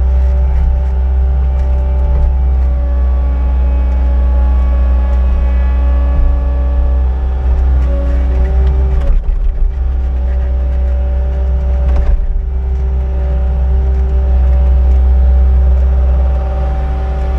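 A heavy engine running steadily at a roughly constant speed, with a deep rumble and a hum that shifts pitch slightly a few times.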